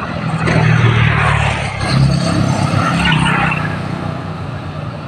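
Road vehicle engine running steadily, with a rushing noise that swells about half a second in and fades after about three seconds.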